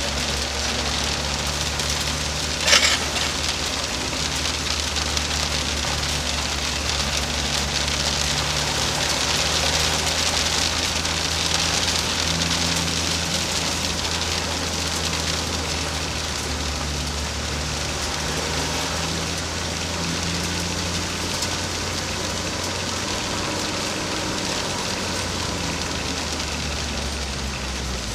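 Škoda Fabia RS TDI's turbodiesel engine running steadily at low revs, heard from inside the cabin under a constant hiss. A single sharp knock about three seconds in.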